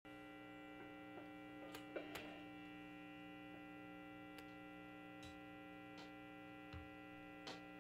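Faint steady electrical mains hum, with a few soft clicks about two seconds in and a couple more later.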